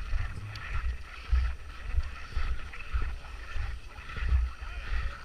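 Wind buffeting the microphone in uneven low gusts, several a second, with a steady hiss of wind higher up.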